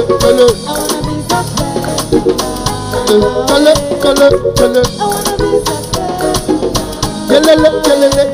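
Live band playing an upbeat song: drum kit, bass guitar and busy percussion keeping a steady, quick rhythm under a melody line.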